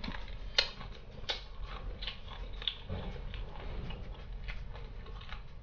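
Close-up chewing of crispy fried chicken: small crunches and wet mouth clicks, the sharpest about half a second in and again just over a second in.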